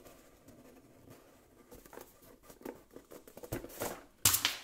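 Hands handling a rigid black cardboard box as its lid is slid off, with faint scraping, rubbing and small taps. A louder, sharper knock comes near the end.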